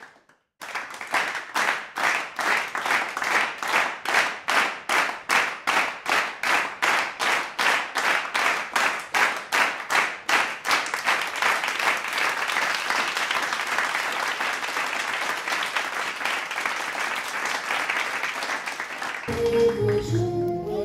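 Audience clapping in unison at about three claps a second, loosening about halfway through into continuous applause. Music starts near the end.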